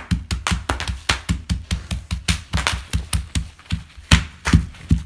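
Bubble wrap popping under small fists pounding it against a wooden floor: a rapid, fairly even string of sharp pops, about six a second, each with a dull knock beneath it.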